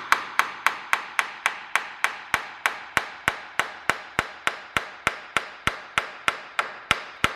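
Small hammer tapping steadily on a Dana 70 rear differential cover, about three or four light strikes a second, each ringing briefly. The taps are meant to break the cover's silicone seal, and the sound changes as the silicone comes loose.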